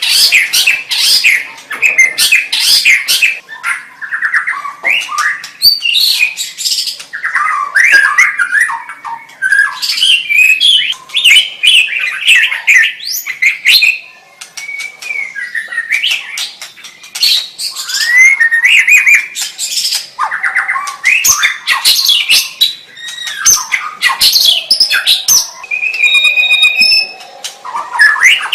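White-rumped shama (murai batu) singing: a fast, varied run of whistles, trills and harsh chattering notes with short breaks, and one held whistle near the end.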